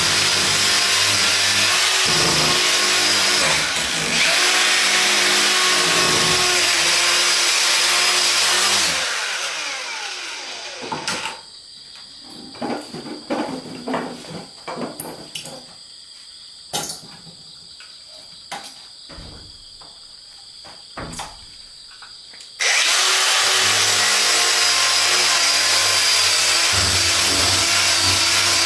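Handheld cordless power tool worked against wood, running with an even, harsh noise that dies away about nine seconds in. For roughly the next eleven seconds only scattered light knocks and taps are heard, then the tool starts up again suddenly and keeps running.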